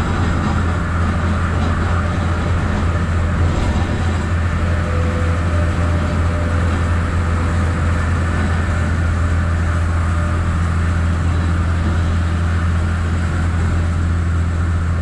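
Cab interior of a cabover semi truck cruising on the highway in heavy rain: a steady low diesel engine drone with road and rain hiss over it.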